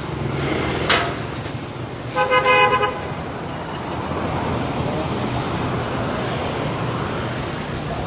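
A vehicle horn honks once, a little over two seconds in, for under a second, over steady street traffic noise. A short sharp sound comes about a second in.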